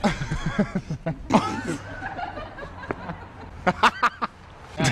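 A man laughing hard in quick repeated bursts, breaking out again near the end, over a low steady hum.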